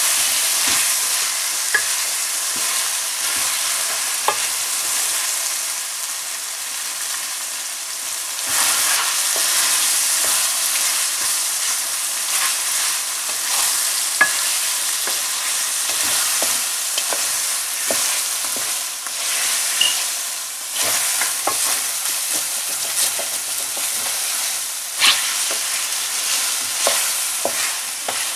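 Lamb pieces sizzling in hot oil in a stainless steel karahi as a spatula stirs them, with frequent short scrapes and clicks of the spatula against the pan. This is the bhuna stage, when the meat is fried down with its spices.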